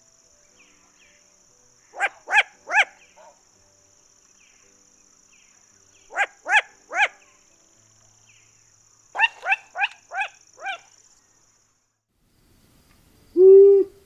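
Long-eared owl giving short, bark-like calls that drop in pitch, in three groups: three calls, three calls, then five or six faster ones. Near the end comes one louder, low hoot.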